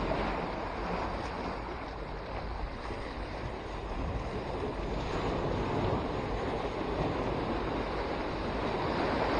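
Sea waves washing and breaking against the concrete blocks of a breakwater in a steady rush, with wind buffeting the microphone.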